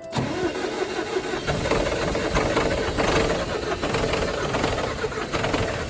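Cold Unimog diesel engine being cranked over by its starter in an attempt to start it, a loud rough churning with irregular knocks that grows heavier in the low end about a second and a half in. The hard start comes from cold temperatures and high altitude.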